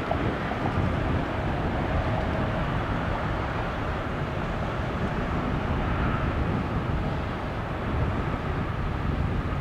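A Boeing 757 jet airliner rolling out on the runway just after landing, its engines giving a steady roar.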